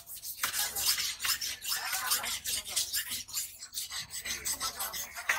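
Knife blade scraping the scales off a large hamour grouper: quick, repeated rasping strokes against the skin.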